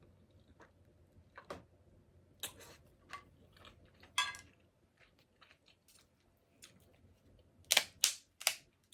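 Close-miked mouth sounds of eating seafood: scattered wet smacks and chewing clicks, with a burst of three or four louder sharp smacks near the end.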